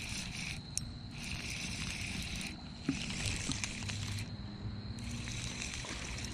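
Insects calling: a steady thin high note with hissy high-pitched pulses about a second long that start and stop, over a low rumble, with a few faint clicks.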